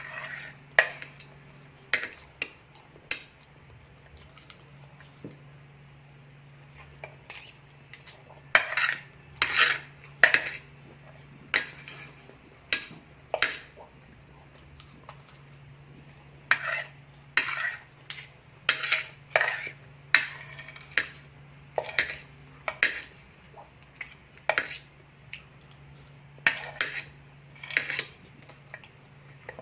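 Cutlery clinking and scraping against a plate while eating, in uneven clusters of short, sharp strokes with brief pauses between them. A steady low hum runs underneath.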